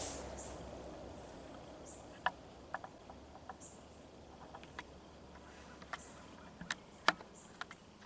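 Quiet woodland ambience: a rush of noise fading away in the first second, then scattered sharp clicks and snaps, the loudest about seven seconds in, over faint high insect chirps every second or two.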